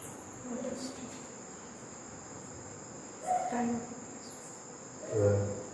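A steady, high-pitched insect trill, such as crickets, runs under the recording, with a few short murmurs of a man's voice, the loudest near the end.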